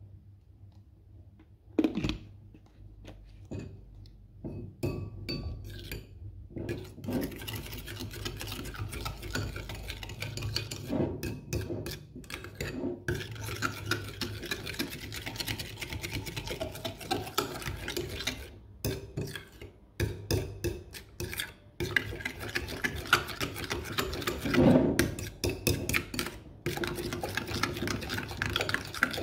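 Metal spoon stirring and scraping a thick mix of hand wash and sugar in a cut-glass bowl, clinking against the glass. For the first several seconds there are only a few taps, then brisk scraping with a few short pauses.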